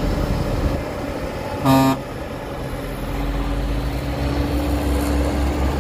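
Heavy diesel engine running steadily, with one short horn toot a little under two seconds in.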